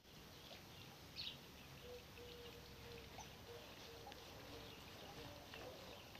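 Near silence, with the faint swishes and ticks of a paint roller spreading wet paint over a rusty steel wheelbarrow tray.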